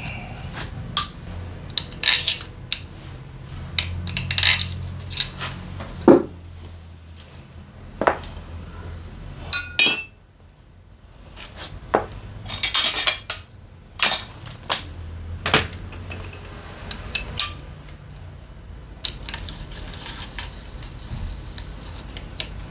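Metal hand tools and engine parts clinking and knocking during hands-on engine work: an irregular string of sharp metallic taps and clatters over a steady low hum.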